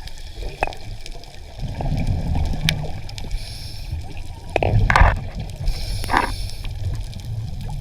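Underwater audio: a low, muffled water rumble with a few gurgling bursts of bubbles and some sharp clicks.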